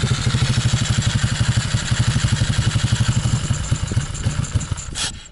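MRF pit bike's small single-cylinder four-stroke engine idling cold just after a kick start, in a fast, even chug. About four seconds in it falters and dies: the cold engine stalls before it has warmed up.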